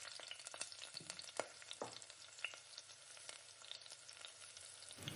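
Sliced onions and ginger-garlic paste frying in mustard oil in an aluminium pressure cooker, with a faint steady sizzle full of small crackles. A spoon stirs them a few times, scraping against the metal.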